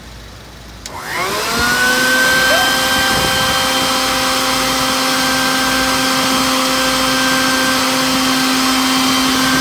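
Wet/dry shop vacuum switched on with a click about a second in, its motor spinning up in a rising whine and then running steadily.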